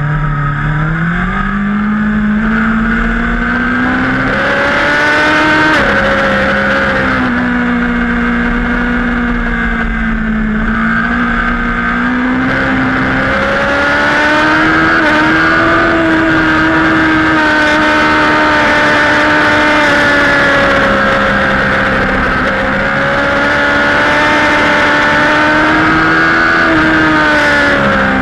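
Racing superbike engine heard from onboard, pulling hard under throttle: the revs climb, drop suddenly about six seconds in at an upshift, then climb again and hold high at speed, and fall away near the end as the rider brakes.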